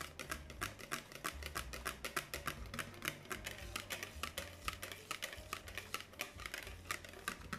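A mixing utensil clicking rapidly against a bowl, about six taps a second, as gelatin is stirred into a cream.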